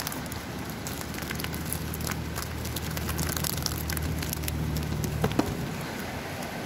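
Crackling rustle of a dip net and live alewives on dry leaves and grass, with many small clicks and two sharper knocks just past five seconds. A low steady hum runs underneath from about a second and a half in until just past five seconds.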